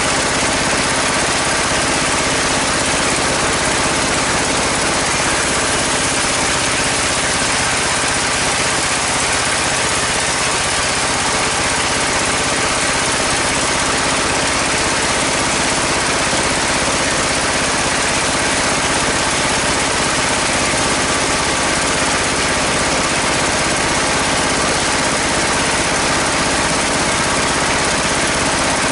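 Sawmill band-saw machinery running steadily: a constant engine note under an even hiss, with no change in speed or level.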